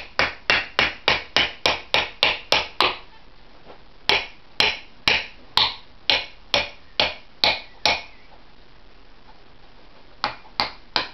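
Hammer blows driving a glue-coated wooden wedge into the slit in the top of an axe handle, spreading the handle end to lock the axe head on. Fast strikes, about four a second, stop about 3 s in; after a pause come steadier blows about two a second, then another pause and three more strikes near the end.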